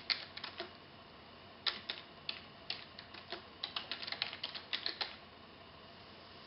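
Typing on a computer keyboard: a few keystrokes at the start, then an irregular run of key clicks from about two seconds in until about five seconds in.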